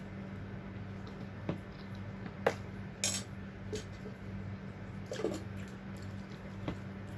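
Utensils clinking and scraping against dishes and a rice pot, a handful of separate clinks with the loudest about two and a half to three seconds in. A steady low hum runs underneath.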